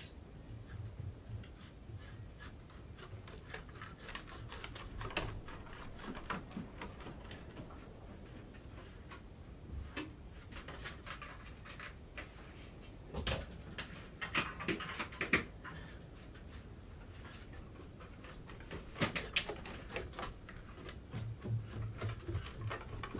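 Crickets chirping at night, a steady high pulsed chirp about twice a second, with scattered faint knocks and rustles.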